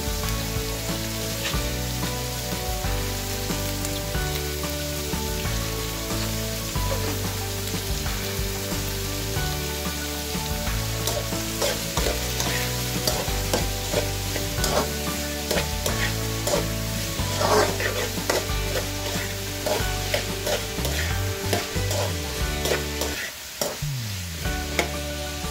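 Chopped onions sizzling in hot oil in a non-stick wok while a metal spatula stirs them, with the spatula's scrapes and taps on the pan coming more often in the second half.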